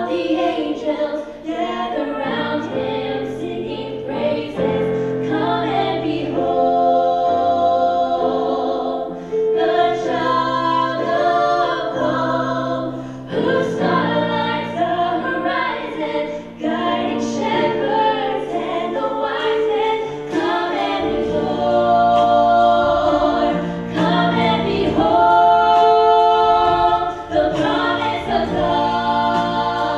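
Three women's voices singing a gospel-style song in close harmony through microphones, backed by a live band of electric guitar, drums and keyboard; the low accompaniment fills out about twenty seconds in.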